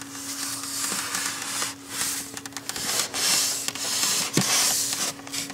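A cloth towel rubbing condensation off the plastic viewing windows of a styrofoam egg incubator, in repeated wiping strokes. A steady low hum runs underneath.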